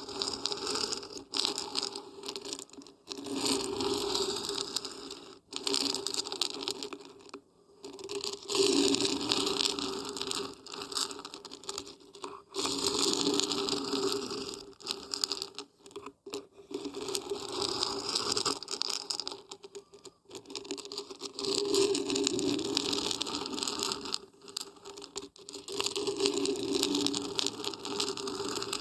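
Dried beans and barberries being shaken, a grainy rattling rush in repeated bursts of a few seconds each with short pauses between.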